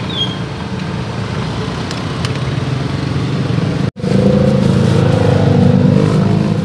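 Roadside traffic dominated by motorcycle engines, a steady low hum. After a brief break about four seconds in, it returns louder, with a nearer engine running.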